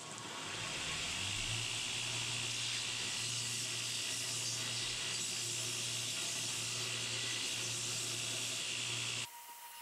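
Belt grinder running with a bent steel strip held against the belt, a steady grinding hiss over the motor's low hum, as dents are ground out of the strip. It builds up over the first second and stops abruptly near the end.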